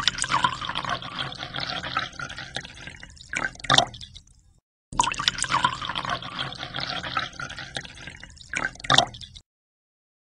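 A stream of water pouring into an empty glass aquarium tank, splashing and bubbling on the tank bottom as it fills. It comes in two stretches of about four and a half seconds, each ending with a couple of sharper splashes, and cuts off about nine seconds in.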